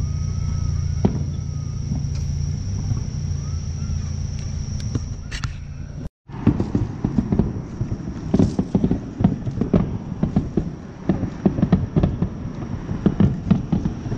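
A steady low hum under a continuous high insect trill, with a few sharp distant pops from fireworks. After a sudden break about six seconds in, dense irregular knocks and rustling follow: footsteps and handling noise as the camera is carried, with the insects still trilling.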